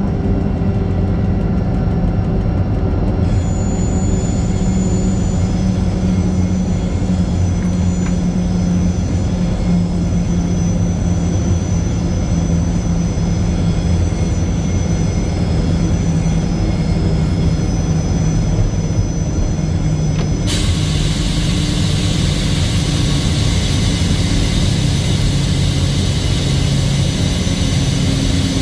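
Diesel locomotive engine running steadily with a deep, even drone; about two-thirds of the way through a steady hiss begins over it.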